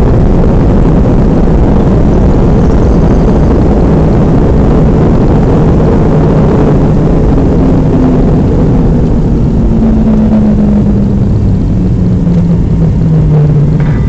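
Loud, steady cabin roar of an MD-88's rear-mounted Pratt & Whitney JT8D turbofans and rushing air on the landing rollout. In the second half a tone slowly falls in pitch as the engines wind down and the jet slows.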